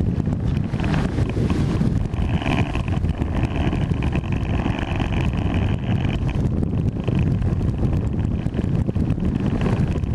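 Outboard-powered fishing boat running under way across open water, its motor drone buried under heavy wind buffeting on the microphone. A faint high whine comes in for a few seconds in the middle.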